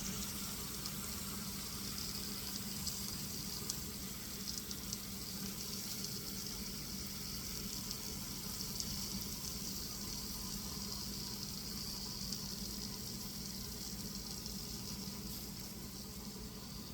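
Butterflied chicken sizzling in a hot pan: a steady, even hiss with a low hum beneath it.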